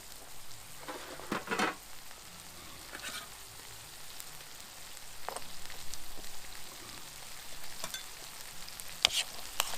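Game hens cooking in a pan with tomato, bacon and Cajun seasoning over a camp stove, a steady sizzle. A few sharp clicks come about a second and a half in and again near the end.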